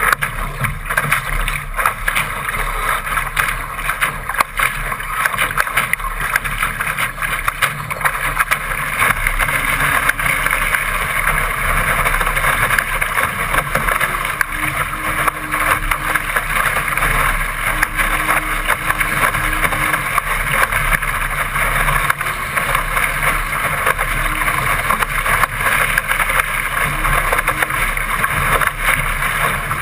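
Water rushing and splashing along the hull of a Laser sailing dinghy as its bow cuts through choppy water at speed, with wind buffeting the microphone; a steady, loud rush.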